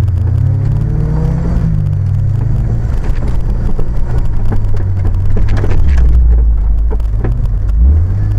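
Engine of an off-road 4x4 driving along a rutted dirt track, its pitch rising near the start and again near the end as it is revved. Scattered knocks and rattles from the vehicle jolting over the ruts come through in the middle.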